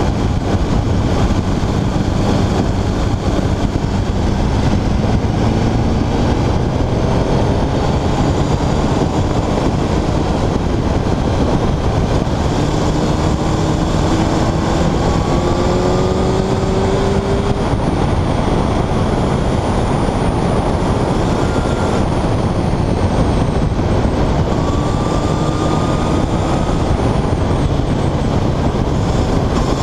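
Sport motorcycle under way: strong wind rush on the camera microphone over the engine, whose note rises in pitch several times as the bike accelerates.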